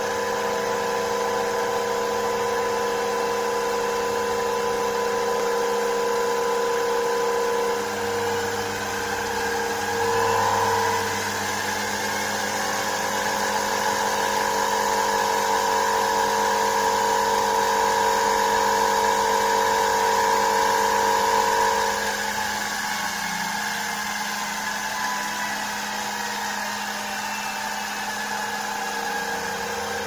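Electric motors running: a drive motor spinning a washing-machine universal motor that is wired as a generator, giving a steady mechanical whine with several held tones. From about eight seconds in until past twenty seconds the tones shift, the sound gets a little louder, and a faint pitch rises then falls, while the generator is lighting a 12 V bulb at its brightest.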